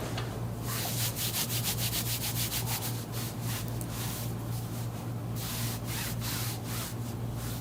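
Quick rubbing strokes, about seven a second, in two runs separated by a short pause, over a steady low hum.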